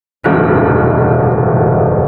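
A single sudden loud strike that rings on with a rich, many-toned sound and fades slowly.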